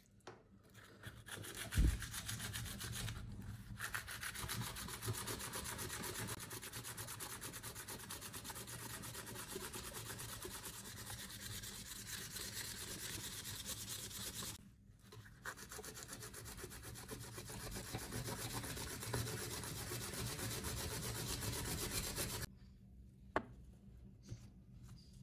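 Sandpaper rubbed by hand back and forth over a wooden knife handle: continuous scratchy sanding with a short break about halfway, stopping a few seconds before the end. A single knock comes just before the sanding starts.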